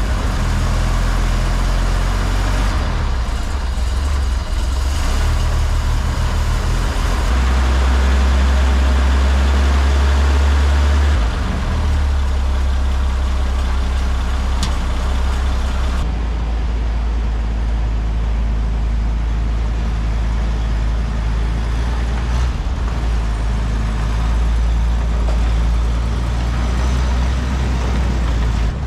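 Maybach HL42 six-cylinder petrol engine of a WWII German halftrack running, now that its magneto has been refitted and timed. The engine note gets louder and higher for a few seconds about a quarter of the way in, then settles back.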